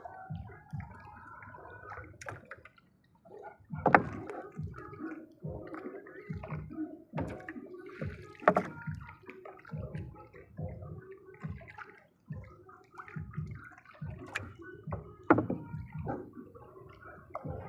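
Water sloshing and gurgling with irregular sharp knocks; the loudest knocks come about 4, 8 and 15 seconds in.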